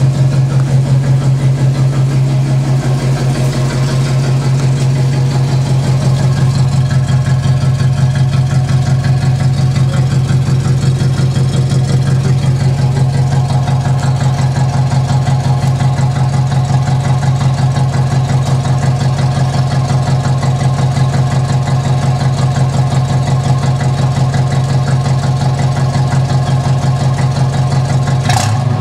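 Holden VC Commodore engine idling steadily through its new exhaust, heard from behind the car at the tailpipe: an even, deep pulsing exhaust note.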